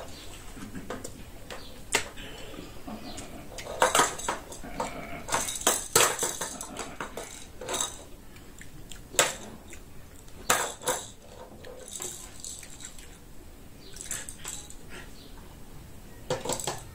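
Scattered clinks, taps and scrapes on ceramic dinner plates as rice and stew are scooped up by hand, coming in clusters of quick sharp sounds.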